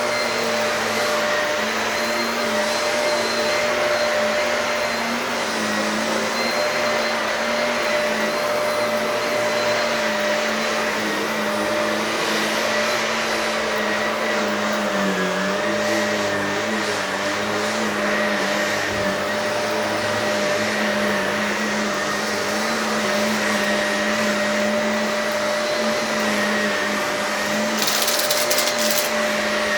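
Shark vacuum cleaner running steadily over an old carpet with a constant motor whine. The pitch dips briefly about halfway through, and there is a short high crackle near the end.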